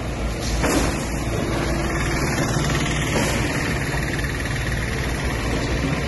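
Excavator's diesel engine running steadily while it works.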